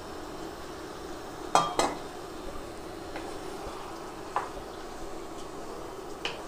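Prawns and onions sizzling steadily in a non-stick frying pan while a wooden spatula stirs them, with two sharp knocks on the pan about a second and a half in and a couple of lighter clinks later.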